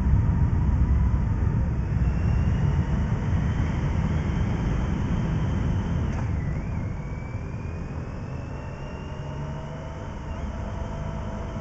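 Motorcycle engine and road rumble heard from the bike itself while riding in a group, echoing in a rock tunnel and then out on the open road. A faint engine whine climbs, drops sharply about six seconds in and climbs again, and the rumble is quieter in the second half once out of the tunnel.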